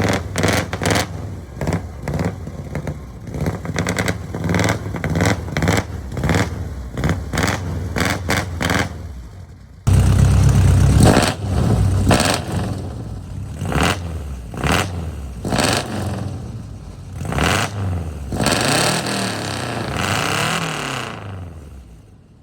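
Four-cylinder pickup engines with true dual exhaust, a muffler on each pipe, being revved in quick repeated throttle blips. About ten seconds in there is a sudden cut to a second, louder clip with the revs rising and falling.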